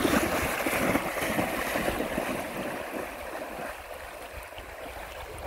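Lake water splashing and churning around a dog that has just leapt in off a dock, loudest at first and slowly dying down as the dog swims away.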